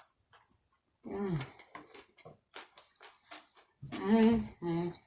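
A woman eating: small chewing and mouth clicks between short wordless voice sounds, the loudest and longest near the end.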